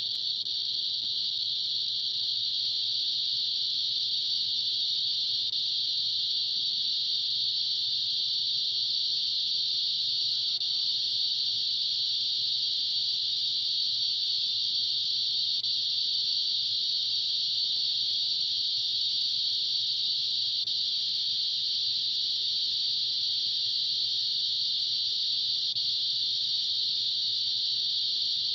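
A steady high-pitched hiss, with no separate clicks standing out.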